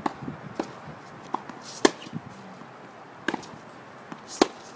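Tennis balls struck with rackets and bouncing on a hard court: a series of sharp pops, the loudest about two seconds in and again near the end.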